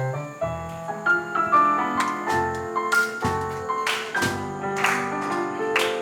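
Jazz trio playing a song's instrumental intro: piano notes and chords over double bass notes, with cymbal strikes joining in from about two seconds in.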